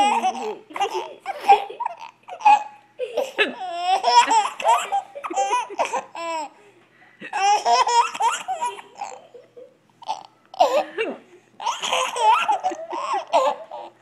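A baby laughing in repeated bursts of giggles, with short breaks about seven and ten seconds in.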